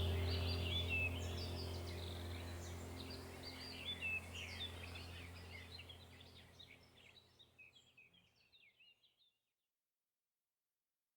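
Many small birds chirping over a low steady drone, both fading out gradually to silence about two-thirds of the way through.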